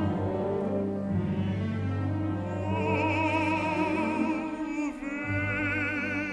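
Operatic baritone singing with wide vibrato over a symphony orchestra's sustained strings. The voice enters about two and a half seconds in with a long held phrase, pauses briefly near five seconds, then takes up another long note.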